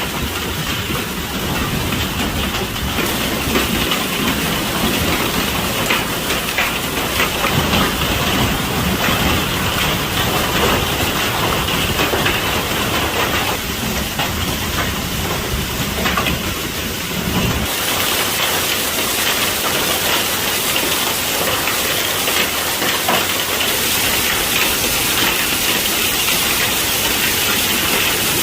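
A heavy rain and hail storm: a dense, continuous downpour with hailstones rattling on hard surfaces. About two-thirds of the way through, the deep rumble drops away and a brighter hiss is left.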